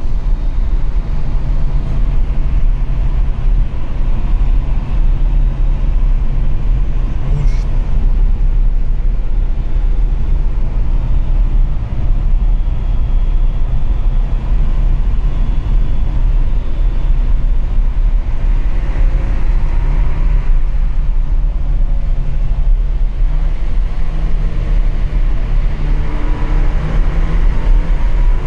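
Inside a BMW's cabin at speed: engine and road noise as a heavy, steady low rumble. The engine note rises twice in the second half as the car accelerates.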